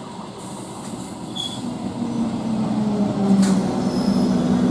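Conventional electric multiple unit (EMU) local train pulling into the station right alongside, with a steady low hum and rumble that grows louder about halfway through as the coaches come past.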